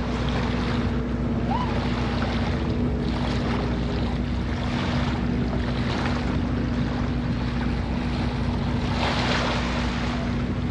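Wind buffeting the microphone over small lake waves washing at the shore, with a steady low hum underneath; a louder rush comes about nine seconds in.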